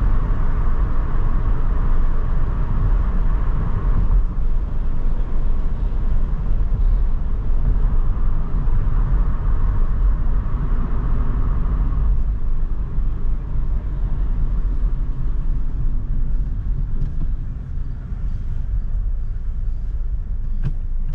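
Car driving on a town road: a steady low rumble of tyres and engine that eases in the last few seconds as the car slows behind traffic, with a few faint clicks near the end.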